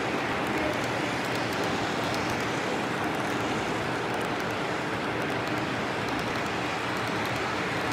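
Model freight train of tank cars and hoppers rolling along the track: a steady rumble of wheels on rails.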